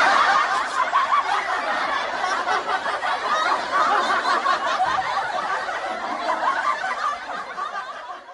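Laughter sound effect of people laughing, loudest at its start and gradually fading out near the end.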